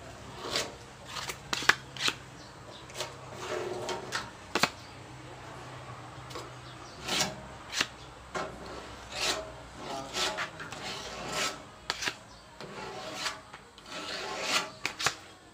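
Filler spreader scraping and smoothing body filler along the edge of a steel sidecar panel: a dozen or so short, irregular strokes as the corner is shaped.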